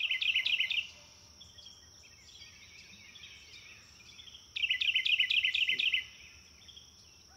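Birdsong: a songbird repeats a fast phrase of sharp, high chirping notes, once at the start and again about four and a half seconds in, with softer scattered chirps between and a thin steady high tone underneath.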